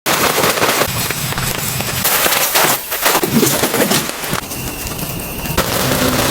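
Wood fire crackling, with many irregular pops.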